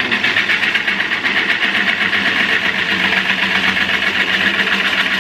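Turning tool cutting a large eucalyptus bowl blank spinning on a wood lathe: a steady, hissing scrape with a fast, even flutter.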